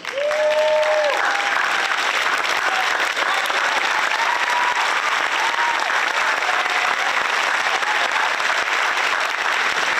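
Audience applauding steadily in a hall after a category of award names is read. A few held voice calls stand out above the clapping, the strongest in the first second.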